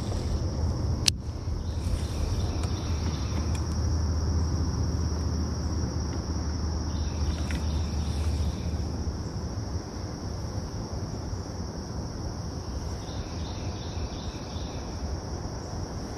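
Steady high drone of insects such as crickets, with a single sharp click about a second in.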